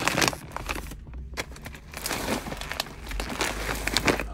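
Crinkling and rustling of a plastic dog food bag being handled, in quick, irregular bursts.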